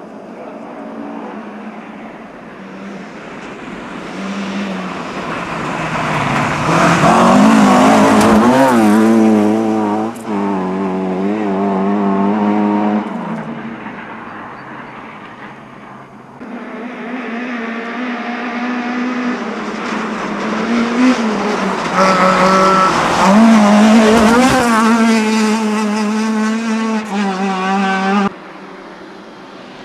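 Two rally cars, one after the other, approach and pass at speed with their engines revving hard, the pitch rising and falling through gear changes and throttle lifts. The first peaks and fades about halfway through; the second builds, runs loud and cuts off abruptly near the end.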